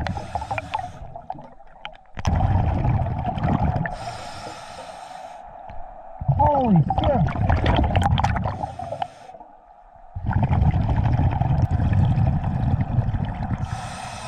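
Scuba diver breathing through a regulator underwater: short hissing inhalations alternating with long, loud bubbling exhalations, about four breaths, over a steady hum.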